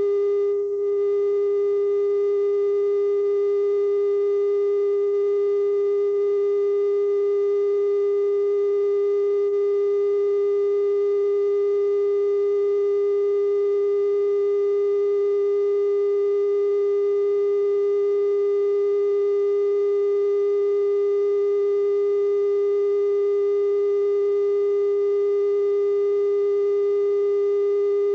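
Steady 420 Hz television test tone played with colour bars after a station sign-off: a single unbroken pitch with faint overtones.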